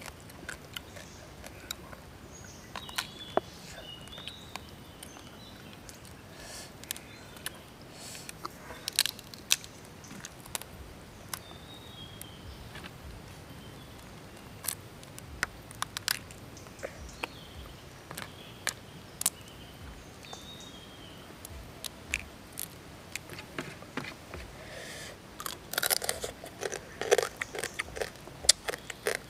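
Boiled crab shells cracking and crunching as they are pulled apart and chewed, irregular sharp cracks over quiet chewing, most frequent a few seconds before the end.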